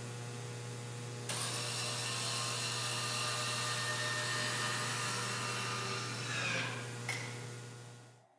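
A motor-driven power tool running with a steady whine. It gets louder about a second in and winds down near the end.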